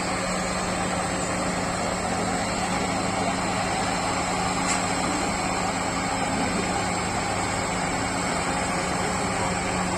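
Engine of heavy road-construction machinery running steadily at an even speed.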